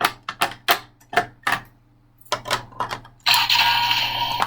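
Hard plastic clicking and knocking as a toy Raise Buckle is pushed and wiggled into a tight slot of a plastic storage box, with a continuous scraping rub of plastic on plastic for about a second near the end.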